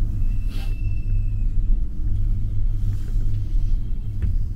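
Steady low rumble inside a moving gondola cabin as it rides along the haul rope, with a short click near the end.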